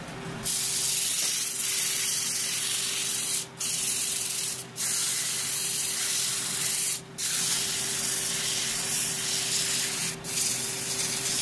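Sandpaper pressed against a pine hollow form spinning on a wood lathe: a loud, steady hiss that starts about half a second in and breaks off briefly four times. Under it runs the lathe's steady motor hum.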